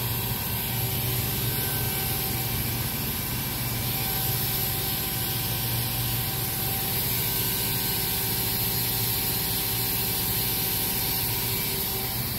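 Steady low hum with a few faint steady higher tones from a powered-up OKK HM6300S horizontal machining center standing idle, with no cutting or spindle movement.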